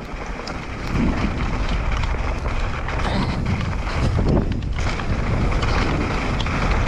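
Wind rushing over the camera microphone as a mountain bike rolls downhill, getting louder about a second in as it picks up speed, with faint clicks of the bike rattling over the trail.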